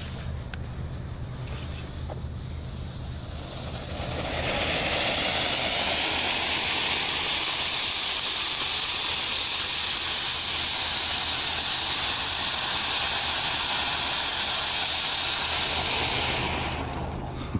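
Brothers 'Sliver of Silver' fountain firework. Its fuse glows quietly at first; about four seconds in the fountain catches and gives a loud, steady hiss of spraying sparks, which tapers off near the end as the fountain burns out.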